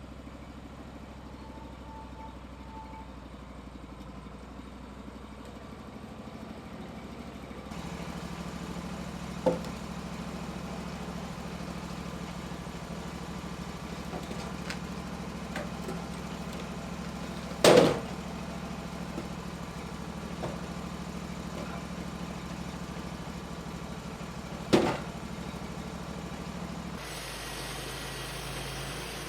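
An engine running at a steady speed, with three sharp knocks over it, the loudest about halfway through.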